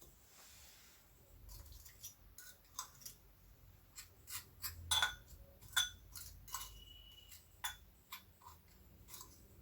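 Scattered light clicks and taps of cookies and utensils being handled against dishes while the cookies are coated in coconut, with a brief high steady tone about six and a half seconds in.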